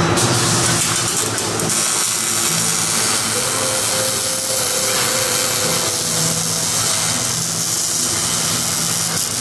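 MIG welding arc crackling and hissing steadily as exhaust tips are welded onto the exhaust pipe.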